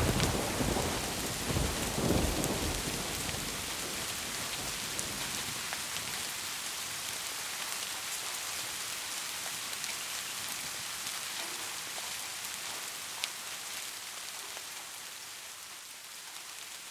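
Steady rain falling, with a low thunder rumble that dies away in the first few seconds.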